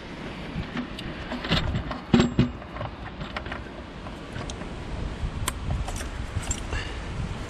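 Scattered small clicks and knocks of a gloved hand working among the plastic electrical and vacuum connectors under a diesel engine's inlet manifold, with one louder knock about two seconds in.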